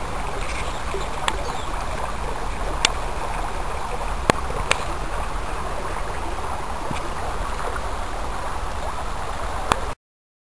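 Rainwater runoff flowing along a shallow stream channel: a steady rush of water, with a few sharp clicks scattered through it. The sound stops abruptly near the end.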